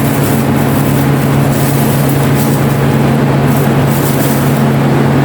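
Washing machine running with a loud, steady hum.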